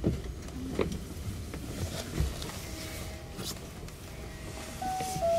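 Low cabin rumble aboard an Osaka Monorail 2000 series car, with a few scattered clicks. From about halfway a faint steady tone sets in and steps up and down in pitch near the end.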